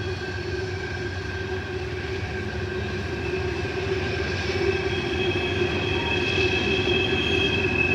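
Norfolk Southern train rolling around a tight curve, its wheel flanges squealing against the rail over a steady low rumble. A second, higher squeal joins about halfway through and grows louder as the train comes closer.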